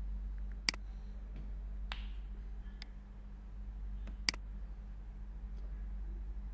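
Computer mouse clicks: two sharp clicks, one under a second in and one past the middle, with a couple of fainter clicks between. A steady low electrical hum runs under them.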